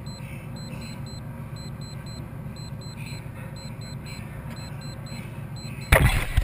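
Electronic timer alarm beeping: short high beeps repeating in quick groups, signalling the end of the Tabata intervals, over a steady low rumble. About six seconds in, loud knocks and rubbing as the camera is handled.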